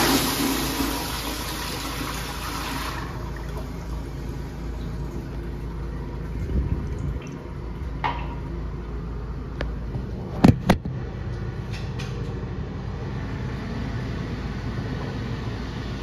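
Kohler Highline Pressure Lite pressure-assisted toilet flushing: a loud rushing whoosh that cuts off abruptly about three seconds in, followed by a quieter steady hiss of water as it refills. Two sharp knocks come close together about ten seconds in.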